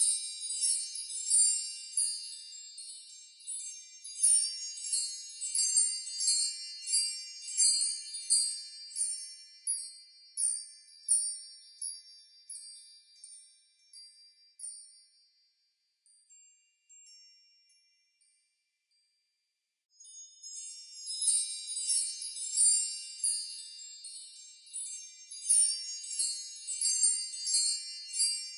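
Tinkling, bell-like chime music: high notes struck in a quick tune. It fades out about halfway, is nearly silent for a few seconds, and starts again about two-thirds of the way in.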